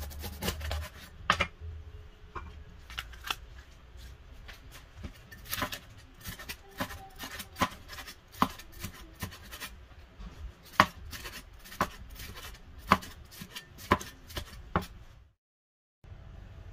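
Cleaver slicing a red bell pepper on a bamboo cutting board: the blade knocks sharply on the wood in irregular chops, roughly one a second, and stops shortly before the end.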